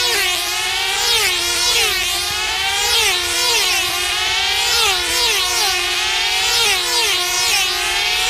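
Several F2C team-racing control-line model aircraft engines screaming at high revs as the models circle, the pitch dropping each time one sweeps past, with the passes overlapping.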